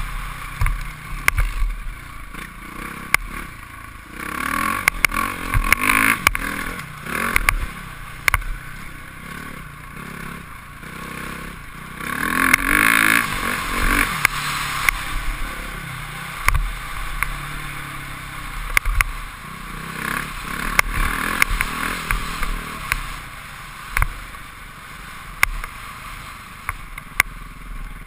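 Motocross bike engine revving hard, the revs rising and falling again and again as it is ridden around a dirt track, heard from a helmet-mounted camera. Sharp knocks and rattles come through all along.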